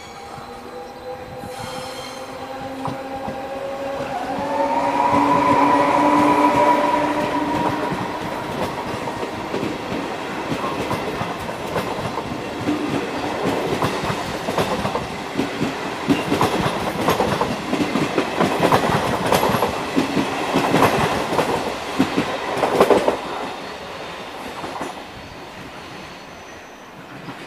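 Trenitalia E.464 electric locomotive pulling away past at close range, its motors whining in steady tones that rise in pitch. Then the train's coaches roll by, wheels clattering over rail joints and points, and the sound fades near the end.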